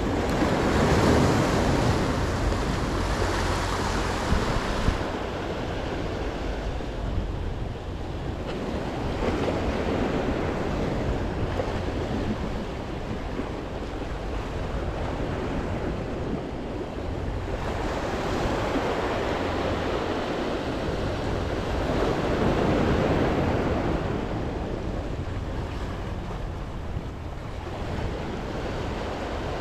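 Sea waves surging and washing against a rock jetty, swelling and fading every several seconds, with wind buffeting the microphone.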